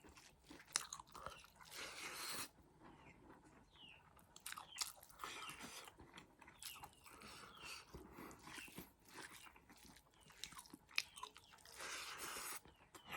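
Close-up eating sounds: chewing and biting into a meal of boiled pork and rice, with scattered soft crunches and mouth clicks.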